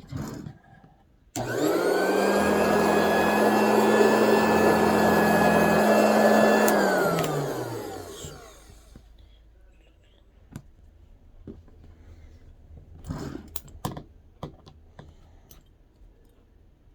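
Electric fabric-cutting machine's motor switched on a second or so in, running with a steady whine for about five seconds, then switched off and spinning down with a falling pitch. Light clicks and handling noises follow.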